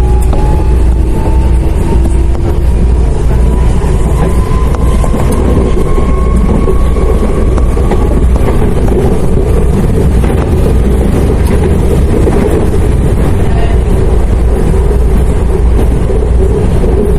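Series 7500 CAF electric multiple unit running, its traction motors whining in a thin tone that slowly rises in pitch over the first half as the train gathers speed, over a loud, steady rumble of the train on the rails.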